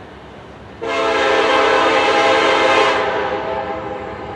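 Air horn of the approaching lead locomotive, CN SD70M-2 8801, sounding one long blast. The chord starts sharply about a second in, holds steady for about two seconds, then dies away gradually.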